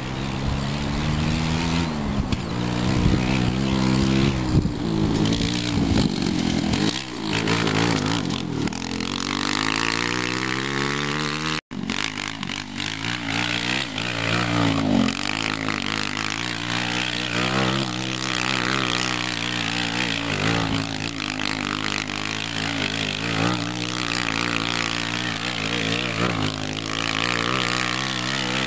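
125cc go-kart engine revving up and down as the kart spins and drifts, with a steady climb in pitch just before the sound cuts out briefly about twelve seconds in.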